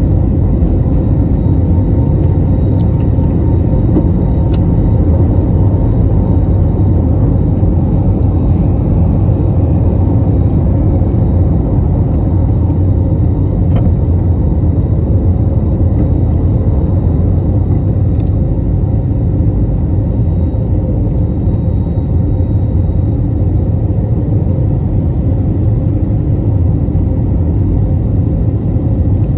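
Jet airliner cabin noise at takeoff thrust through liftoff and climb-out: a loud, steady deep roar of engines and rushing air, with a faint steady whine above it.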